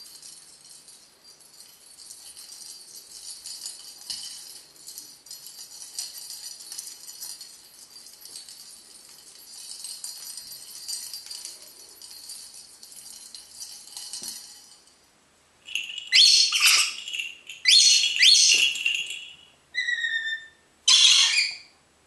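A lorikeet shaking a plastic dumbbell toy, which makes a continuous high jingling rattle for about fifteen seconds. Then, after a short pause, the lorikeet gives several loud, harsh screeches.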